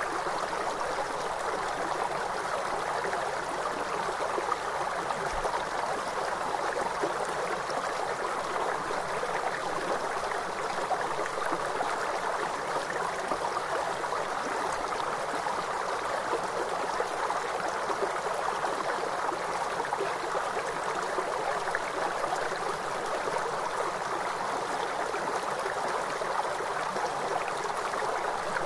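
A river flowing steadily: an even, unbroken sound of running water.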